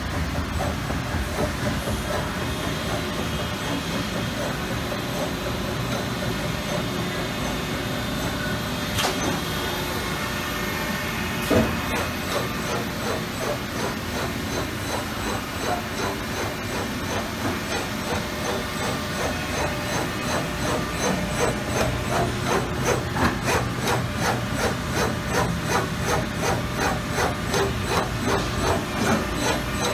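Amada Pega 345 CNC turret punch press running under power: a steady machine hum and hiss, with one sharp knock about a third of the way in. Over the last third it goes into a regular clatter of strokes, about two a second.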